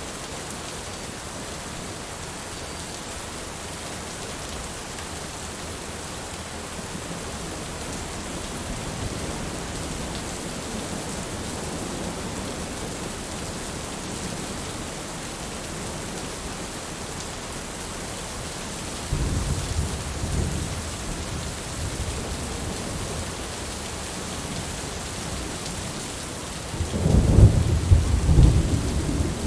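Steady rain falling, with thunder rumbling twice: once about two-thirds of the way through, and louder and longer near the end.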